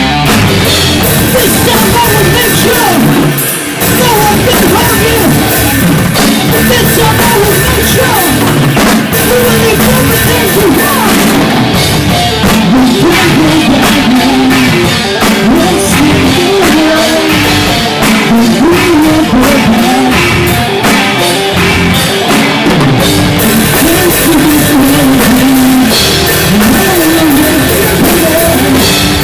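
Rock band playing live and loud: drum kit and electric guitars, with a singer on a microphone.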